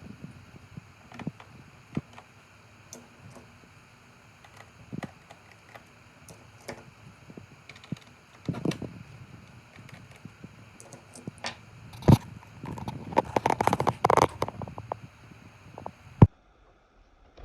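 Hands working on an HP 15s laptop's plastic case with small tools: scattered clicks and taps, then a fast run of clicking and scraping about thirteen seconds in. A sharp click near the end, after which the sound cuts off.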